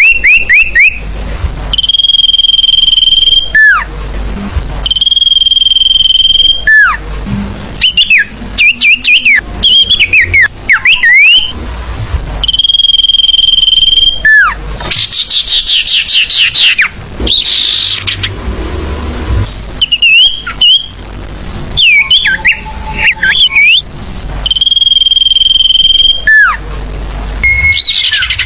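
Sirfu bird song used as a lure call: long, steady high whistles of about two seconds, each ending in a quick downward slur, alternating with rapid chirps and short trilling phrases.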